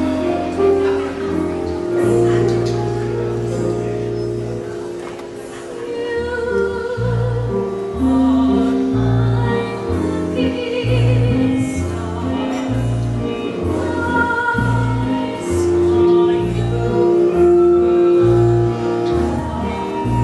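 A woman singing a musical-theatre song solo, with held, wavering notes, over an instrumental accompaniment with a steady walking bass line.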